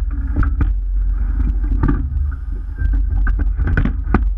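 Rowing shell under way with a sweep-oar crew: a steady low wind rumble on the mounted camera's microphone and water along the hull, with sharp clunks from the oars in their oarlocks that come in clusters about every two seconds, in time with the strokes.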